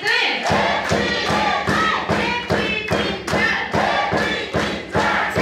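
Dance music starts about half a second in: a fast, steady thumping drum beat with singing over it.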